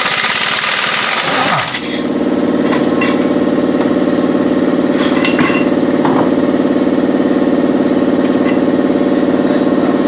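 A pneumatic impact wrench runs at a truck's wheel nuts for about the first two seconds, a harsh burst of noise. Then a steady, loud mechanical drone with a fast rattle takes over and holds unchanged.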